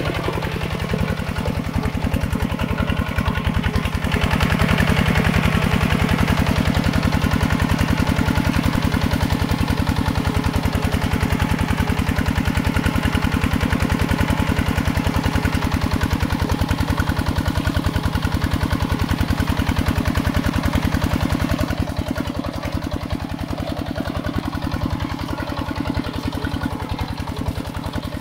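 Mini tractor engine running steadily with a rapid, even firing beat. It grows louder about four seconds in, as if taking more load, and eases back again a few seconds before the end.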